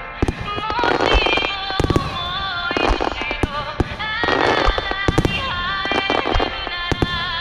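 Fireworks shells bursting with sharp bangs, followed by bursts of crackling, over music played for the display.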